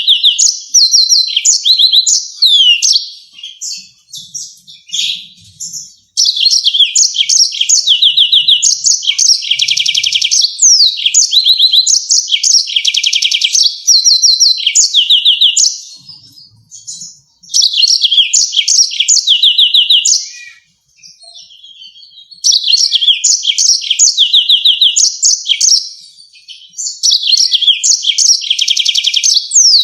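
Yellow-fronted canary singing: long phrases of fast rolling trills and sharp, high repeated notes, broken by short pauses of one to three seconds.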